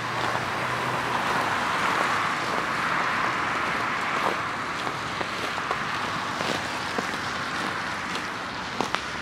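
Road traffic: a car passing with a rush of tyre noise that swells over the first few seconds and then eases off into steady traffic noise. A few short clicks come near the end.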